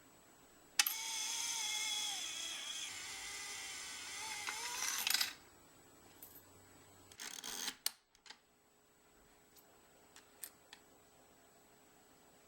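Casting Furnace mechanical coin bank in operation: about a second in, a pitched whirring sound starts suddenly and runs for about four seconds, then cuts off. A short rattle follows, then a few light clicks.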